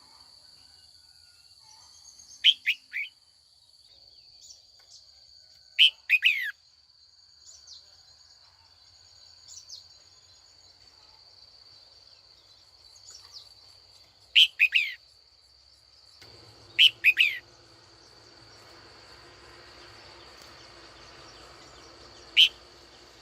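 Red-whiskered bulbul calling in five short bouts of two or three quick, falling whistled notes, spaced a few seconds apart, over a steady faint high-pitched tone.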